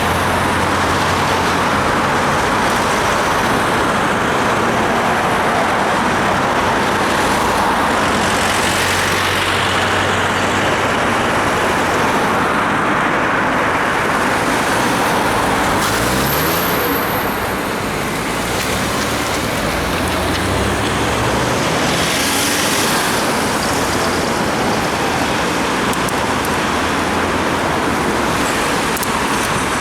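Road traffic and wet-road noise heard from a moving bicycle, a dense steady rush. A motor vehicle's engine rises in pitch as it speeds up, about two-thirds of the way in.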